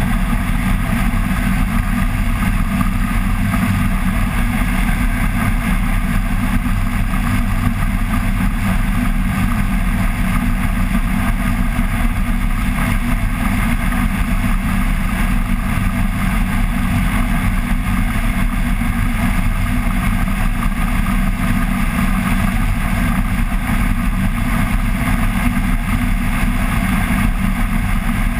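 Flex-wing microlight trike's pusher engine and propeller running steadily at cruise power in flight, a constant low drone with wind rushing over the microphone.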